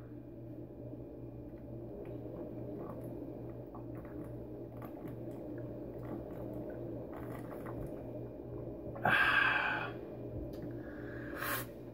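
A man swigging malt liquor from a 40-ounce bottle: faint swallowing over a steady low hum, then a loud breathy exhale about nine seconds in as he lowers the bottle, and a shorter one near the end.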